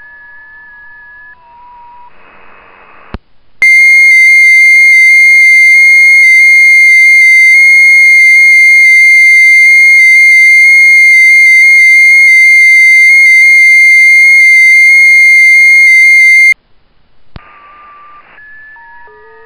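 FT8 transmit audio from WSJT-X: one loud steady tone near 2 kHz, stepping by tiny amounts in pitch, lasting about thirteen seconds, the eight-tone frequency-shift keying of a single FT8 transmission. Fainter steady tones come before and after it, and a short hiss and a click mark its start and end.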